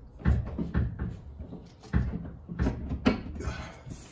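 About five dull knocks and clunks as a gas strut is forced by hand onto its metal mounting bracket on a Murphy bed mechanism, the parts a stiff push-on fit.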